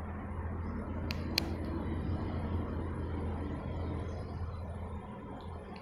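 Steady low background rumble and hum, with two sharp clicks about a second in, a third of a second apart.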